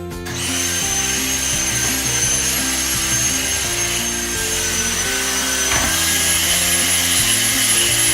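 A power tool's motor running steadily with a high whine, starting just after the start, over background music with a changing bass line.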